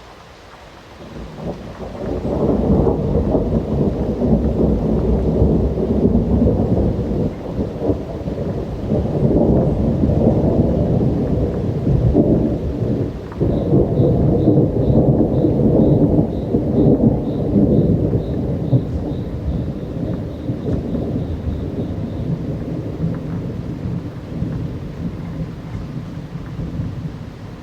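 Long rolling thunder over steady rain. The low rumble builds about two seconds in, surges and rolls on for over twenty seconds, then dies away near the end.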